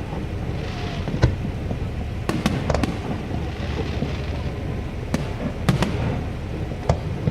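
Aerial fireworks shells bursting: about nine sharp bangs at uneven intervals, some in quick pairs, with hissing crackle from the bursts between them. A steady low rumble runs underneath.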